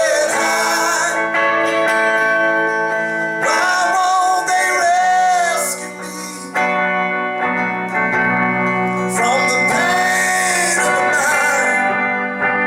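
Live band music on acoustic guitars, sustained chords under a wavering melody line that bends in pitch.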